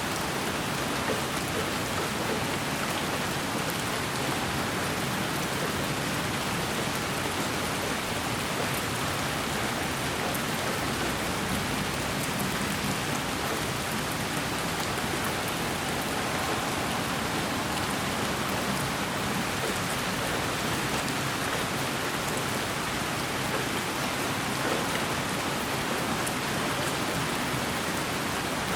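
Steady, unchanging rain-like hiss, with faint fine ticks of drops pattering over it, played as white noise.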